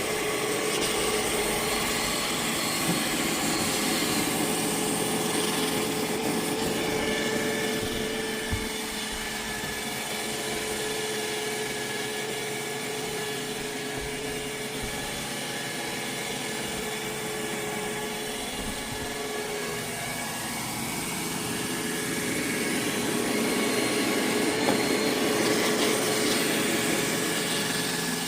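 iRobot Roomba Max 705 robot vacuum running: a steady motor whine over brush and suction noise. It swells and fades slowly and is loudest about three-quarters of the way in.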